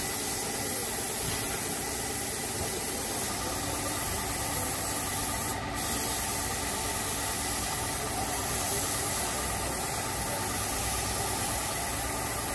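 Compressed-air paint spray gun spraying a car bumper: a steady, loud hiss that breaks off for a moment about halfway, with a steady machine hum beneath.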